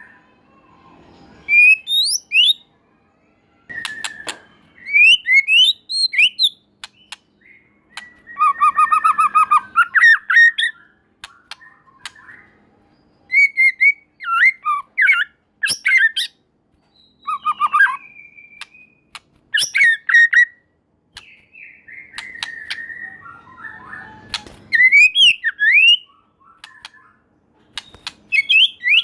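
White-rumped shama singing in loud phrases of varied whistles, fast up-and-down sweeps and chattering notes, mixed with sharp clicks, with short pauses between phrases.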